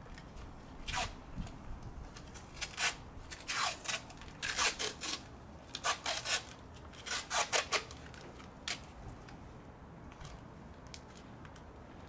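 A series of about a dozen short, scratchy rubbing strokes from hands working at the top of a scroll compressor, bunched in the middle and thinning out toward the end.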